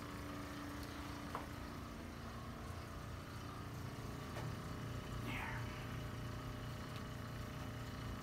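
Steady low hum of room noise, with a few faint clicks.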